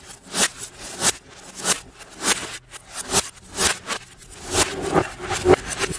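A plastic computer keyboard being smashed down again and again, about ten sharp cracks roughly every half second, with the audio played in reverse.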